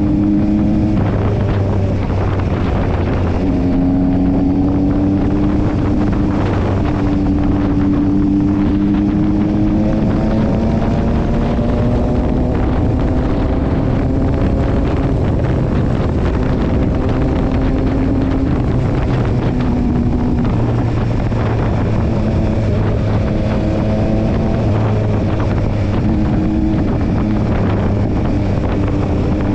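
Yamaha Tracer 9 GT's three-cylinder engine running under way, its note rising slowly and dropping back in steps several times, with wind noise over the microphone.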